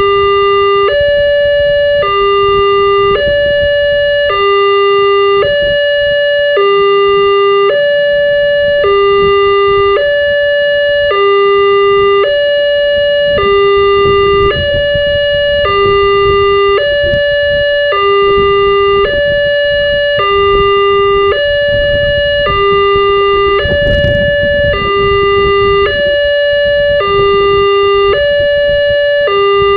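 Wantech railway level-crossing warning alarm sounding its electronic two-tone signal: a lower tone and a higher tone alternate steadily, about one full cycle every two seconds. A low rumble runs underneath, and there is a single sharp knock about 24 seconds in.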